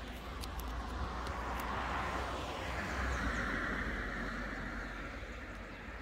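A vehicle passing: a rushing noise that swells toward the middle and then fades, over a low steady rumble.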